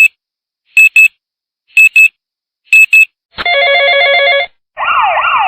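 Electronic alarm sounder cycling through its tones. First comes a short high beep, then three pairs of quick high beeps about a second apart. A warbling trill follows for about a second, and near the end a siren starts that sweeps down over and over.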